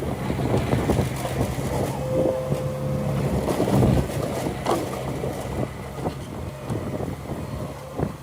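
Diesel engine of heavy earthmoving machinery running steadily at a low drone.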